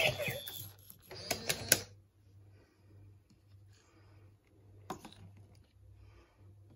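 Small mechanical clicks and light rattling from the toy robots moving: a cluster about a second and a half in and a single click near five seconds, with only faint low sounds in between.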